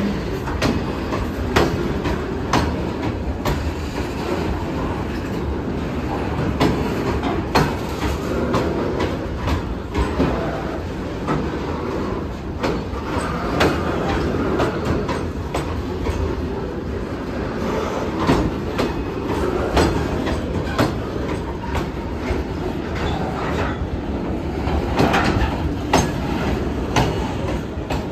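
Goods train of covered hopper wagons rolling slowly past: a steady low rumble of steel wheels on the rails, with irregular clicks and knocks as the wheels pass, about one or two a second.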